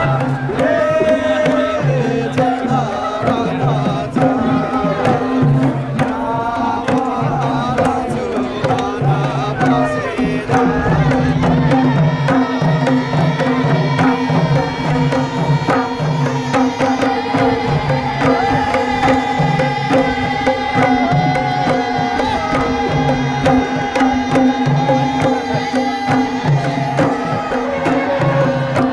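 Madals, Nepali barrel-shaped hand drums, played in a steady repeating rhythm, with voices singing a Sorathi folk song over them.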